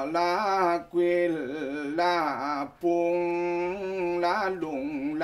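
Mường mo ritual chant: a man's voice intoning long, held melodic lines that waver and ornament in pitch, with short breaks for breath about a second in and near three seconds in.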